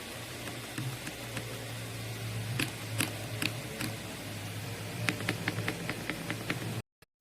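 Keystrokes on a mechanical keyboard with Gateron Milky Yellow Pro linear switches: scattered single presses, then a quick run of about eight keystrokes near the end. The keystrokes sit over a steady low hum and hiss, and everything cuts off suddenly just before the end.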